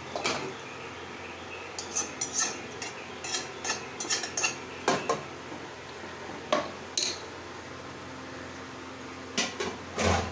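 Steel slotted spoon stirring chicken in a pressure cooker, clinking and scraping against the metal pot in a string of short knocks, the loudest one near the end.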